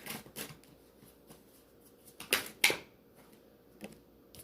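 Tarot cards being handled and laid down: a few short papery snaps and rustles, the loudest two close together about two and a half seconds in.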